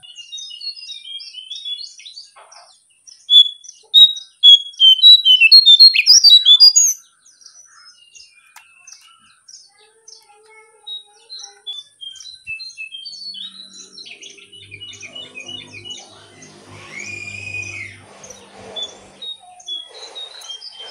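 Caged jongkangan bird chirping in quick series of short high notes, with the loudest rapid run a few seconds in. A low drone sounds in the background during the second half.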